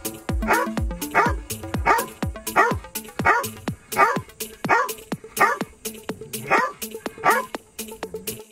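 A dog barking over and over in strict rhythm, about once every two-thirds of a second, laid over background music with a deep steady beat and held notes.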